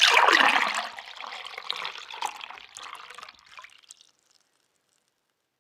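Liquid pouring and splashing, strongest in the first second, then thinning into smaller trickles and fading out about four seconds in.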